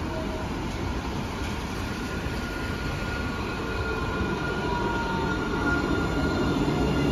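Steel-wheeled light-rail tram pulling into a platform, growing louder as it comes alongside, with a thin steady high-pitched whine over its rumble.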